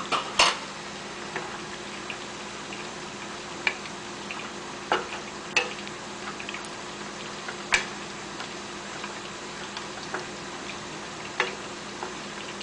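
A utensil stirring sauce in a pan, clinking against the pan every second or two, over a steady simmering hiss.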